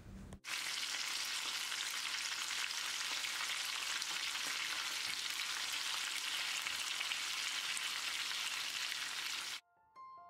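Masala-coated kingfish steaks and curry leaves shallow-frying in hot oil: a steady sizzle that cuts off suddenly near the end, where a few soft piano notes of background music begin.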